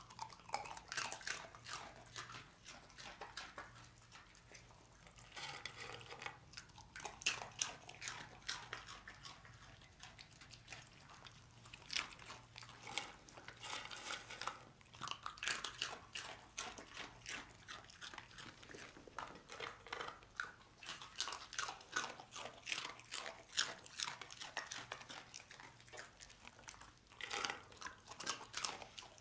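A dog crunching and chewing dry twisted pasta snacks: rapid crisp crunches in quick runs with short pauses, thinning briefly shortly before the end.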